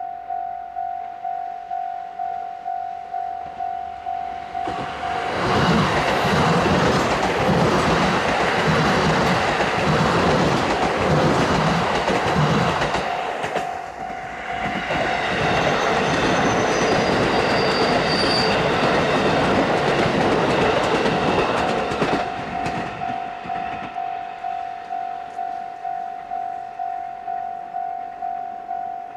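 Japanese level-crossing alarm ringing its repeating electronic ding, about one and a half strikes a second. About five seconds in a train passes over the crossing with rhythmic wheel clatter over the rail joints; the train noise dips briefly around fourteen seconds, swells again until about twenty-two seconds, then the crossing alarm rings on alone.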